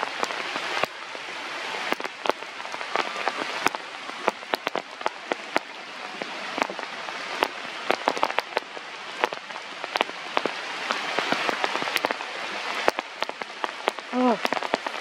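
Steady rain, with many sharp drops striking close by. Near the end a brief call falls in pitch.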